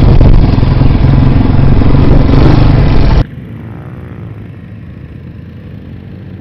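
Dirt bike engine running under way, heard loud and close from on board the bike. About three seconds in it cuts off abruptly to a dirt bike engine heard much quieter, from the side of the track.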